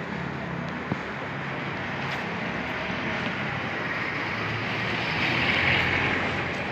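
Steady rushing street noise along a residential road, swelling about five seconds in and easing off near the end, with a small click about a second in.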